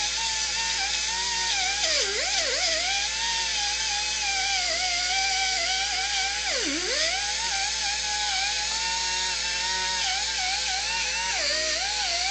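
Electric drill running at high speed with a steady whine, its pitch dipping sharply three times as the bit bites and the motor bogs under load, enlarging bolt holes in metal.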